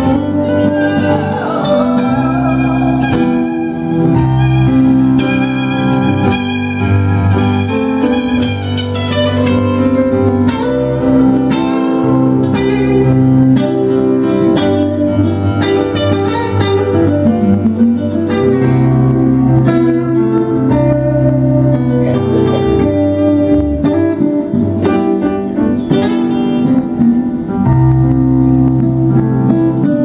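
Live band music: electric guitar lines over keyboard chords, playing steadily.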